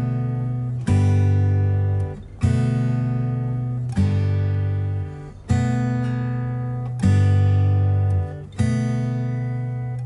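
Background music: acoustic guitar chords strummed about every one and a half seconds, each left to ring out and fade before the next.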